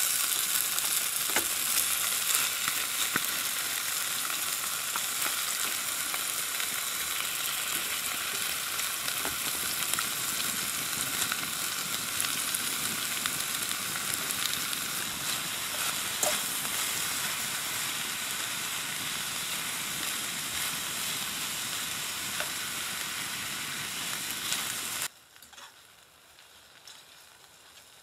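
Steady sizzling with small crackles through it, food frying in a pan. It cuts off abruptly about 25 seconds in.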